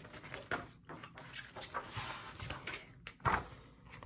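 A hardcover picture book being lifted and handled, its paper pages rustling in a series of short, irregular sounds, with a louder rustle a little past three seconds in.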